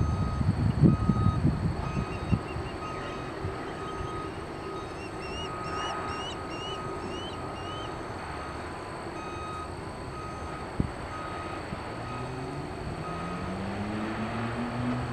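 Vehicle reversing alarm beeping at an even pace, with wind buffeting the microphone at first. A few short chirps come in a few seconds in, and near the end a low engine drone rises in pitch.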